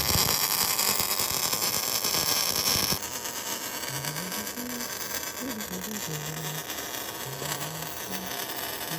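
Steady, loud hissing noise of repair work, cutting off suddenly about three seconds in and leaving quieter background noise with a faint wavering hum.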